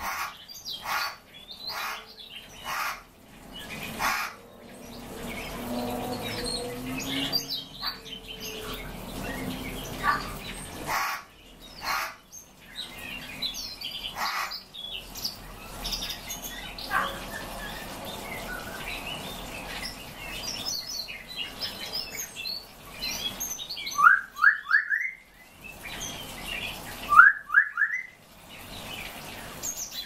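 Several caged finches chirping and calling, with short high chirps throughout and a few sharp clicks in the first seconds. Twice near the end a bird gives a loud burst of three or four quick rising notes.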